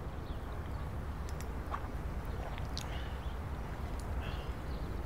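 Quiet room tone: a steady low hum with a few faint, short high chirps and light clicks scattered through it.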